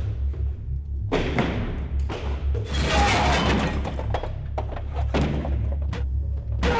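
A low, pulsing drone of film score, with a series of heavy thuds and crashes over it. The loudest comes about three seconds in.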